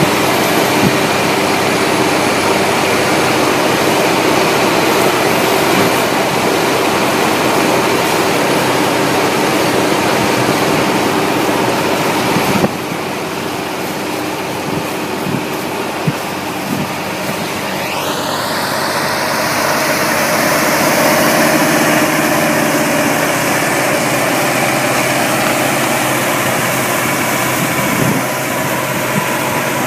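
Deutz-Fahr Agrotron TTV 610 tractor's six-cylinder diesel working steadily under load, driving a Celli rotary tiller through dry stubble and soil. A high whine rises about two-thirds of the way through.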